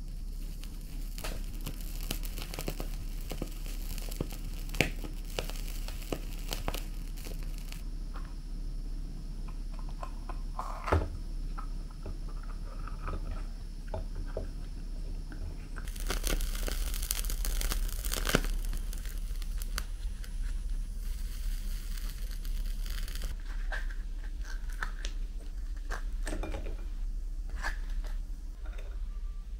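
A dried-squid sake flask being toasted over a portable butane stove's burner and then cut and torn apart. A steady gas hiss comes and goes, with small crackles and clicks from the squid, scissors snipping through it, and dry crinkly tearing of the toasted squid near the end.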